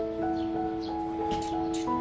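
Background music of slow, held notes that change pitch every half second or so.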